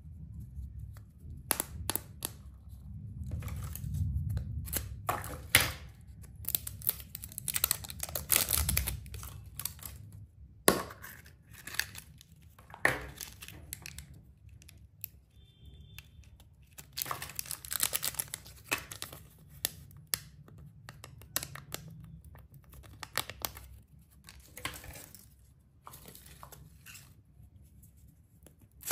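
Plastic candy and toy wrappers crinkling and tearing as they are handled and opened, with small clicks and taps of hard plastic toy parts and egg shells. The sound is irregular, with louder spells of rustling about four, nine and eighteen seconds in.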